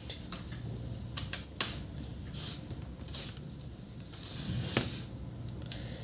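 Light clicks and knocks of a Sony Vaio laptop being handled: the charger plug pushed in and the plastic lid lifted open. The clicks are scattered, the sharpest about a second and a half in.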